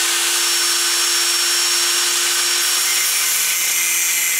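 Angle grinder running steadily at one pitch, its cutting disc grinding through the brass body of a bottle-type automatic air vent.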